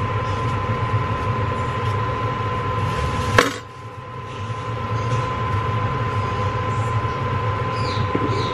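Steady machine hum with a thin high whine running through it, and one sharp knock about three and a half seconds in.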